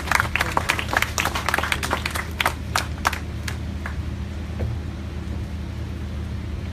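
Audience applauding with distinct individual claps, thinning out about three and a half seconds in to a few last claps. A steady low hum lies underneath.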